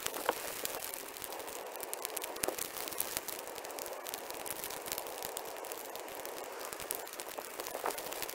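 Freshly lit pile of dry brush and branches burning, crackling with a dense, irregular run of small snaps and pops.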